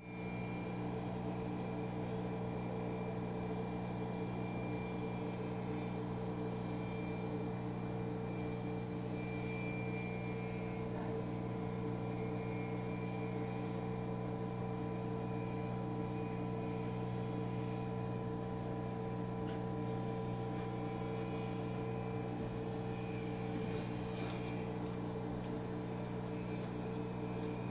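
A steady machine hum made of several fixed tones, unchanging throughout, with a few faint clicks near the end.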